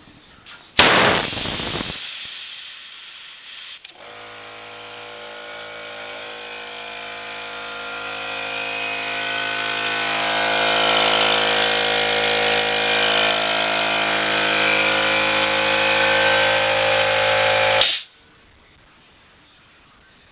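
Lee air compressor: a sudden loud burst about a second in fades away over about a second, then the compressor starts and runs with a steady mechanical hum, growing louder for several seconds before levelling off, and shuts off abruptly near the end.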